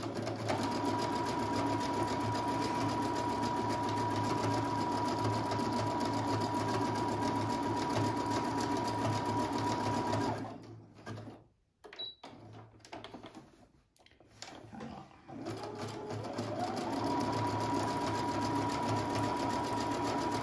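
Brother Innov-is 200 computerized sewing machine sewing at a steady speed with a high motor whine. It stops about ten seconds in, a few small clicks follow, then it winds back up and keeps sewing.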